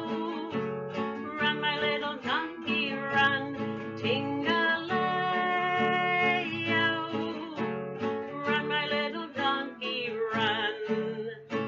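Acoustic guitar strummed in a steady rhythm while a woman sings along, with a wavering held note near the end.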